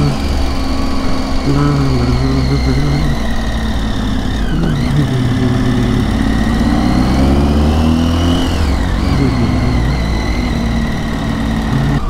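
Triumph Tiger 800's three-cylinder engine running on a steep, twisting climb, the revs rising and easing off again and again through the bends.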